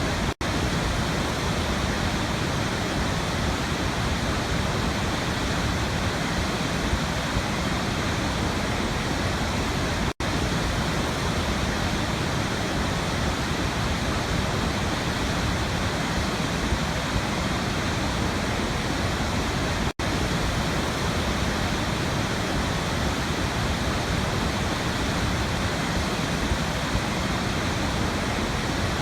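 Waterfall, its water pouring in a steady, even rush, broken three times by a brief gap of near silence about every ten seconds.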